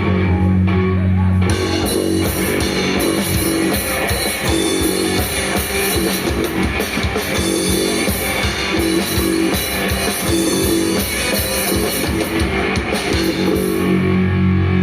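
Nu metal band playing live, with electric guitars, bass guitar and drum kit. Low held notes open the passage. Drums and cymbals come in about a second and a half in and drop out near the end, leaving the low notes ringing.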